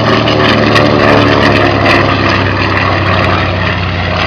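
Grumman TBM Avenger's Wright R-2600 Cyclone twin-row radial engine and propeller droning steadily as the aircraft flies past, loudest a second or two in and easing slightly after.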